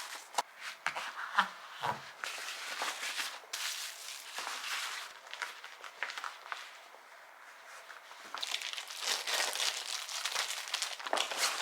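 Plastic food packaging crinkling and rustling as it is handled, with small clicks and knocks of storage containers set down. It goes quieter briefly in the middle, then the rustling picks up again.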